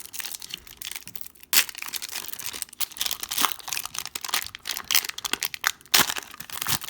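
Crinkling plastic wrapper of a trading-card pack, handled along with the cards. Irregular crackling that runs on, with louder crinkles about a second and a half in and again near the end.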